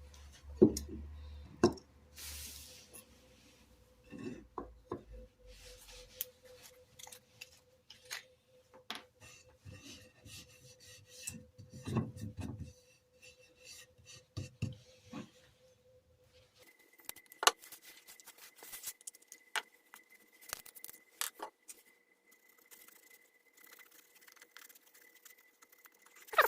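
Scattered small clicks, taps and rubbing from hands working with super glue, accelerator and a cracked wood piece during a glue repair. A faint steady tone runs underneath, jumping to a higher pitch about two-thirds of the way through.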